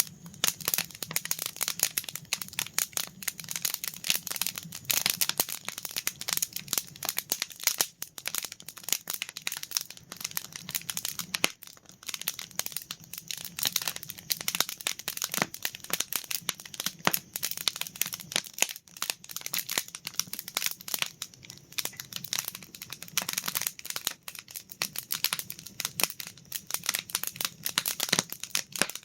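Wood campfire crackling: a dense, continuous run of pops and snaps.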